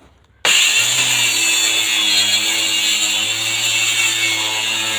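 Handheld electric circular saw running loud and steady while cutting through a wooden door frame. It starts abruptly about half a second in.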